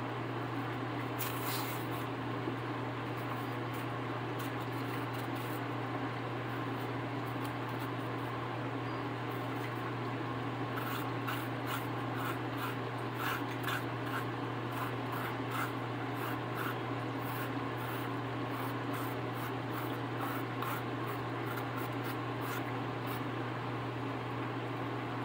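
Small kitchen knife scraping and cutting the peel off a plantain: short, scratchy strokes that come thick and fast from about halfway through, over a steady low hum.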